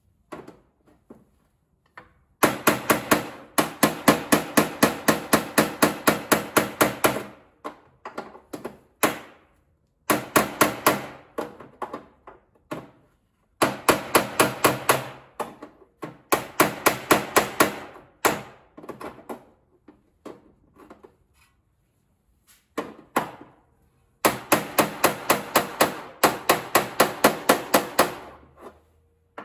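Hammer tapping rapidly on the steel rear fender lip of a Mazda RX-7 FC, about four blows a second, in runs of several seconds with short pauses between. This is the rolled-in (tsume-ori) fender lip being knocked back out to its original shape.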